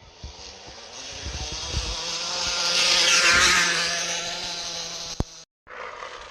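Crushed aluminium pop can pressed against a bicycle's spinning rear tyre, buzzing like a small motorbike engine. It swells to its loudest about three seconds in, then fades and cuts off suddenly near the end.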